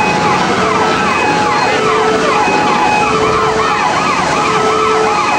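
Several sirens sounding at once: overlapping rising and falling wails that change to a faster warble about three seconds in, over a loud, steady noise, with a lower steady tone that sounds on and off.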